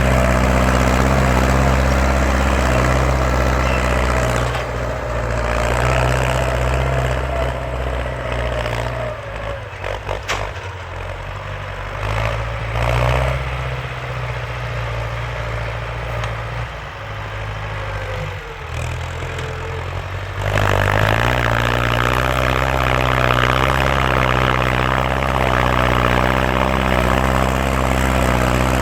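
Ford farm tractor engine running loud and steady with a deep, even drone. It drops somewhat for a stretch in the middle, then comes back to full loudness abruptly.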